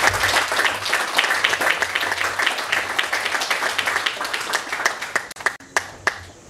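Audience applauding, a dense run of clapping that thins out to a few last claps near the end.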